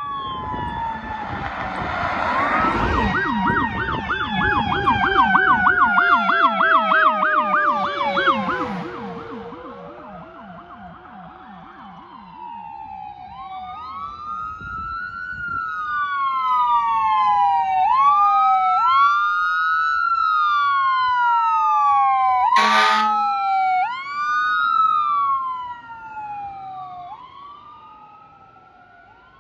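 Emergency vehicle sirens. In the first ten seconds a vehicle passes close with a fast yelping siren and its pitch drops as it goes by. Then ambulance sirens sound in a slow rising-and-falling wail, two of them overlapping, with a short horn blast about 23 seconds in, fading as they drive away.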